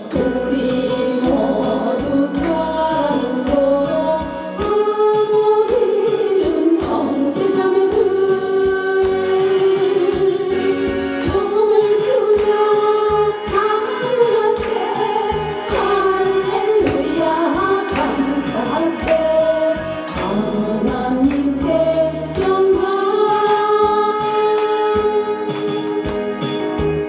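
Gospel song sung by a group of voices over instrumental accompaniment with a steady beat.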